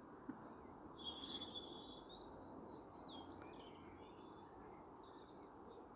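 Faint songbird chorus, with scattered high chirps and one held whistling note about a second in, over a steady distant traffic hum. The traffic carries unusually far, which may indicate a temperature inversion.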